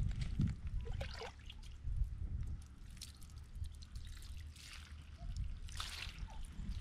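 Water trickling and dripping in short spells, several times over, as a dog is rinsed during a bath.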